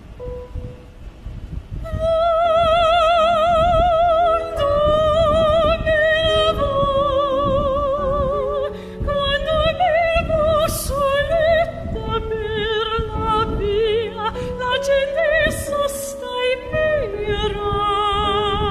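Music with an operatic singing voice: a high melody with wide vibrato and long held notes over a chordal backing, coming in about two seconds in.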